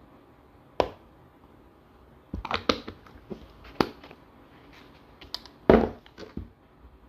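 Plastic cosmetic jar and its lid being handled: a series of sharp plastic clicks and knocks, with a quick cluster about two and a half seconds in and the loudest knock near the end.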